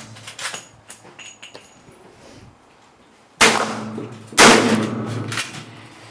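Two shots from a Henry .44 Magnum lever-action rifle about a second apart, each a sharp crack followed by a long ringing echo. A few light clicks come before them.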